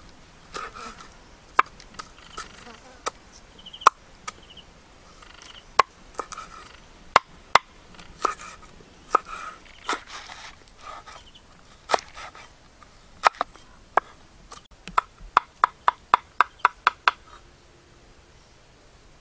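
Cleaver chopping ginger on a wooden chopping board: scattered single knocks, then a quick run of about a dozen chops, roughly five a second, near the end.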